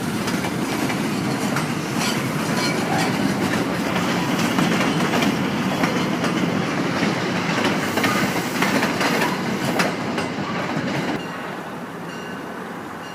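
MBTA commuter rail train rolling past, wheels clicking over the rail joints. The rolling noise drops off suddenly about eleven seconds in.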